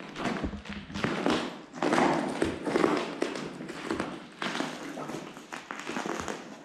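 Footsteps on a hard floor: an irregular run of taps and thuds.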